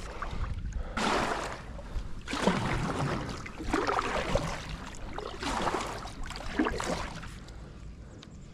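Kayak paddle strokes splashing in the water, one about every second and a half, over a low steady rumble.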